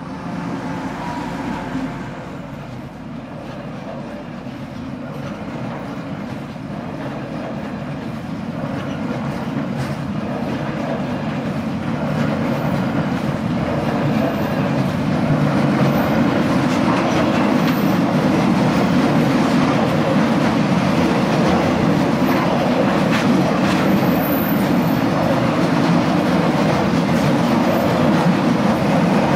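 ST44 (M62) diesel freight locomotive going by in the first couple of seconds. Then a long train of loaded double-deck car-carrier wagons rolls past close by, with a steady clickety-clack of wheels over the rail joints that grows louder.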